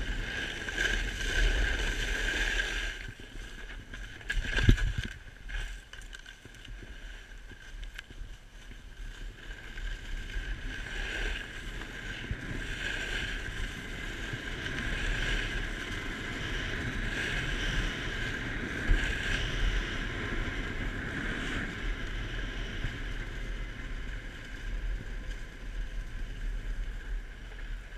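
Snowboard sliding and carving on packed, groomed snow: a steady scraping hiss of the base and edges that swells and eases through the turns, with wind on the microphone. A sharp thump about five seconds in.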